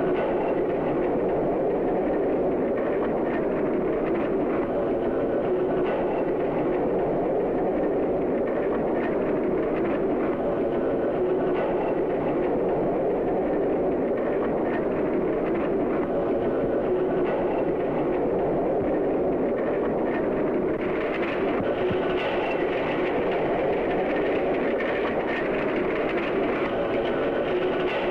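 Horses galloping: a steady, continuous clatter of hoofbeats in an old, hissy film soundtrack.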